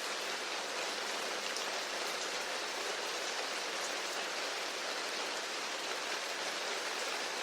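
Steady, gentle rainfall, an even hiss of rain on a surface.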